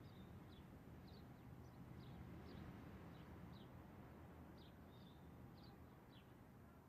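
Near silence: faint outdoor ambience with a low rumble and a small bird giving short, high, downward-sliding chirps about twice a second.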